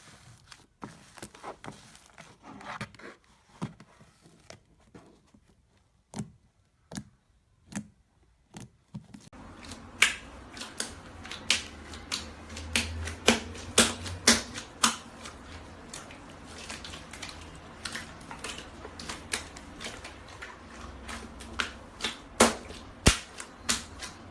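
Slime being squeezed and pressed by hand, making a run of crisp clicks and pops. They are sparse and quiet at first, then come thicker and louder over a low background from about nine seconds in.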